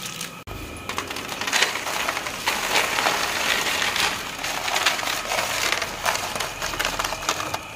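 Crisp, freshly fried gram-flour sev tipped off a slotted frying ladle onto newspaper: a dense crackle of many small clicks as the crunchy strands tumble and pile up. It starts about half a second in.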